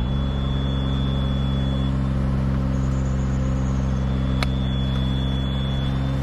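Engine of an aerial lift running steadily at a constant speed, with one sharp click about four and a half seconds in.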